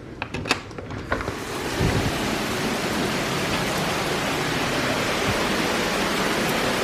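Heavy rain pouring down in a steady, even hiss. It starts quieter with a few sharp clicks and swells up about a second and a half in.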